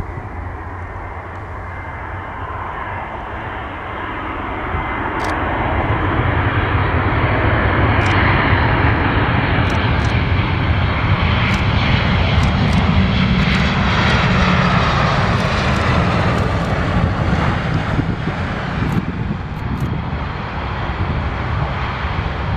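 Airbus A319-114's twin CFM56 jet engines during a landing. The roar swells about five seconds in and stays loud for ten seconds or so, with falling whines as the jet slows on the runway, then eases off near the end.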